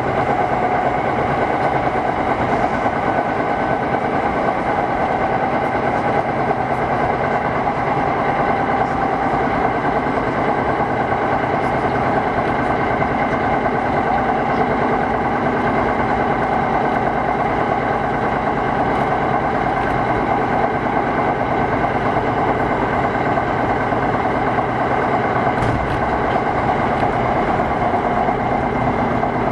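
Kintetsu 1000-series electric train running between stations, heard from inside the car: a steady rumble of wheels on rail with a steady hum of tones over it.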